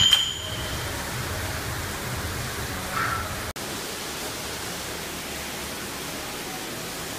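Steady hiss, opening with a metallic clank of dumbbells whose ringing dies away within the first half second.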